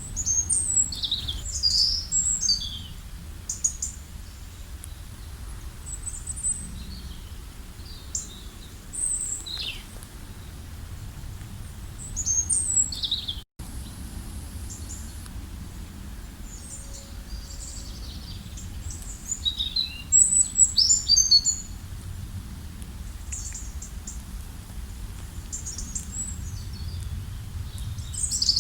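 Several small songbirds chirping and trilling in bursts, the busiest near the start, just before the middle and toward the end, over a low steady rumble. The sound cuts out completely for a moment about halfway through.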